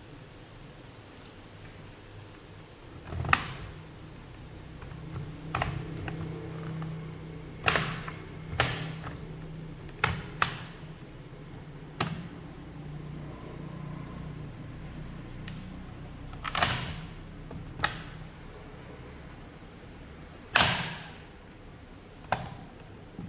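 Plastic clips of a Dell Inspiron 15 5000 laptop's bottom cover snapping loose as the cover is pried open with plastic pry tools: about a dozen sharp clicks at irregular intervals over a faint low hum.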